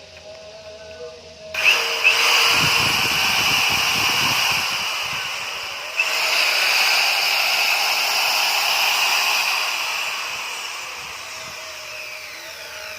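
An NRT Pro electric power tool switched on about a second and a half in and running at speed with a high whine, with a jolt in the sound about halfway through. Near the end the motor winds down, its pitch falling as it fades.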